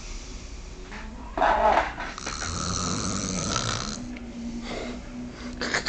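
A sleeper snoring: one long rasping snore a couple of seconds in, with a short louder burst shortly before it.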